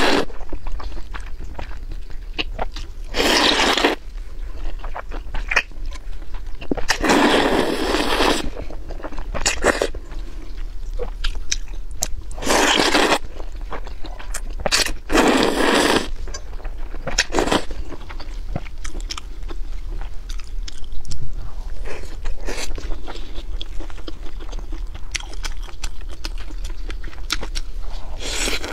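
Close-miked slurping of noodles from a spicy broth: about half a dozen loud slurps a few seconds apart, with chewing and small wet mouth clicks between them.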